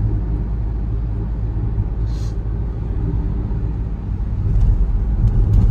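Steady low rumble of road and tyre noise inside an MG Hector's cabin at highway speed on a wet road, with a brief hiss about two seconds in.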